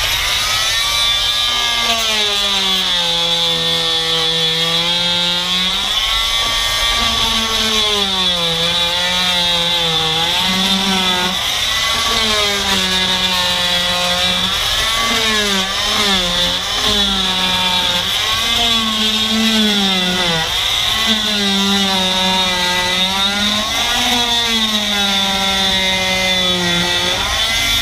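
Corded oscillating multi-tool with a rigid scraper blade running continuously as it is pushed under old boat carpet to strip it from the deck, its motor whine sagging in pitch and recovering over and over as the blade bites into the carpet and glue.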